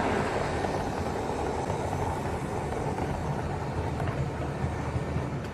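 Diesel locomotive engine running steadily with a deep drone, taken from recordings of a Russian TEP70 V-engine locomotive. The higher part of the sound fades after about two seconds as the train draws away.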